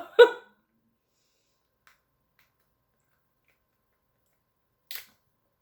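A woman's short two-part vocal sound, hiccup-like, right at the start, the second part the louder. About five seconds in, a single short sharp crack.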